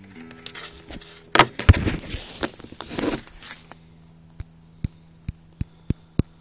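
The last acoustic guitar chord fades out under loud knocks and rubbing, as the recording phone is handled about a second in. After that come sharp single clicks, about two a second, over a faint steady hum.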